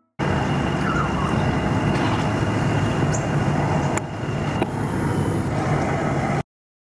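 Steady road and wind noise of a moving car, with a brief dip and a click about four seconds in.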